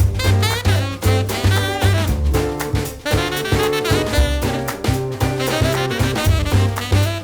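Background music: upbeat swing jazz with brass and saxophone over a walking bass and drum kit, keeping a steady beat.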